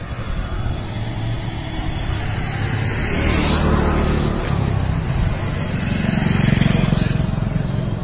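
Motorbikes riding past on the road, engine and tyre noise swelling as each one goes by: once about three seconds in and again, louder, around six and a half seconds in.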